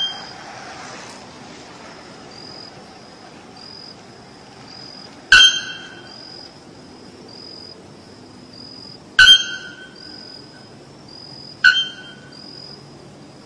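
Bare-throated bellbird giving three loud, clanging blacksmith-like calls, each a single sharp strike that rings briefly, spaced a few seconds apart. A faint high chirp repeats evenly underneath, about twice a second.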